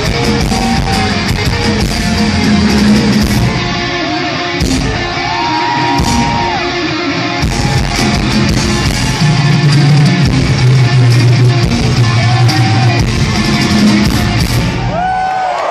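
Heavy metal band playing live and loud: distorted electric guitars over bass and drums, heard from within the audience in a theater. Near the end the band cuts out and the crowd starts cheering and whistling.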